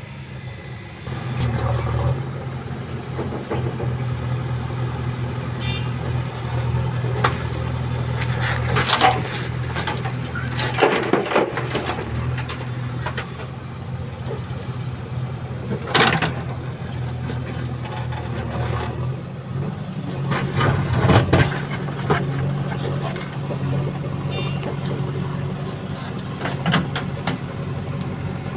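Backhoe loader's diesel engine running steadily under load from about a second in, with several short loud crashes as the bucket digs and dumps red soil into a tractor trailer.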